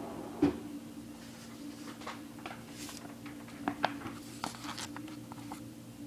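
Small handling noises: a soft thump about half a second in, then scattered light clicks and rustles, over a steady low electrical hum.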